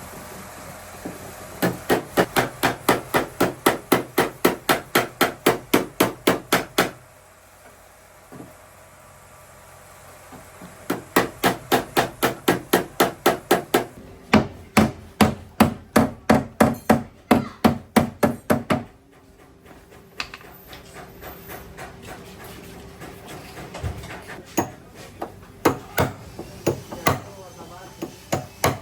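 A hammer beating a car's sheet-metal body panel in dent repair: two long runs of rapid, even blows at about five a second, then slower, scattered taps toward the end.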